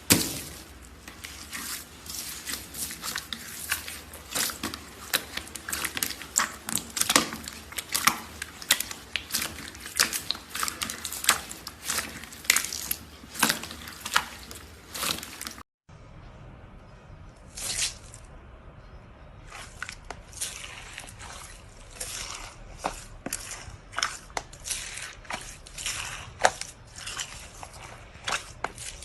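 Slime being squeezed and poked by hand, making a quick, irregular run of wet clicks and pops. The sound cuts off abruptly about halfway through and resumes after a brief pause.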